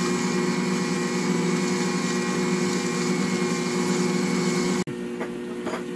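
Ankarsrum stand mixer running steadily as its roller and scraper work cookie dough in the turning stainless bowl: a steady motor hum with hiss. About five seconds in, the sound drops suddenly to a quieter hum.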